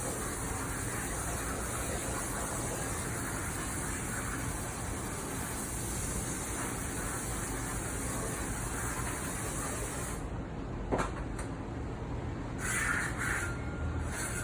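Water spraying hard into a metal-lined outdoor sink during dishwashing, a steady hiss that cuts off about ten seconds in. A sharp knock follows, then a brief clatter.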